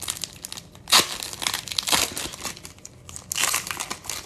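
Foil wrapper of a Bowman Platinum baseball card pack being torn open and crinkled in the hands, in several bursts with a sharp loud rip about a second in.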